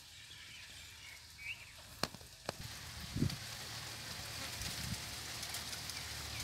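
Faint crackling and rustling of dry grass, leaves and gravel being walked through, with two sharp clicks about two seconds in and a low thud a moment later.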